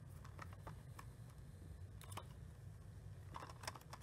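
Faint, scattered clicks and taps of a plastic Blu-ray case being handled and turned over in the hand.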